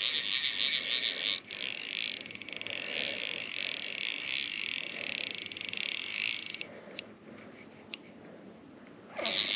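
Fly reel's ratchet clicking rapidly as line is reeled in against a hooked fish. It stops about six and a half seconds in, leaving a few single clicks.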